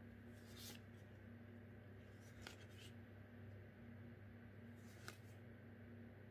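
Faint swishes of foil trading cards being slid off a hand-held stack, a few times, over a low steady hum.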